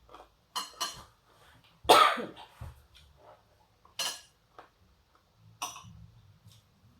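Eating sounds at close range: several short sharp clicks and smacks, with one louder, longer burst about two seconds in.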